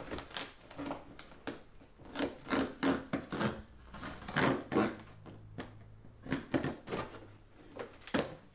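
A box cutter slicing and scraping along packing tape and cardboard on a large shipping box, in a run of irregular rasping strokes.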